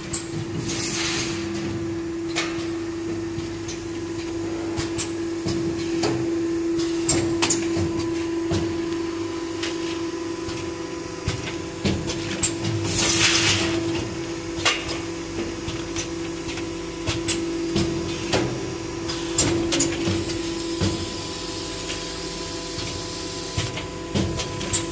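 Premade-bag doypack packing machine running: a steady hum with scattered clicks and knocks from its mechanism, and a short loud hiss of air about every twelve seconds, three times.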